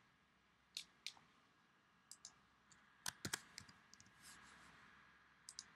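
Faint, irregular clicks of typing and tapping on a tablet's on-screen keyboard: about ten short ticks in small groups.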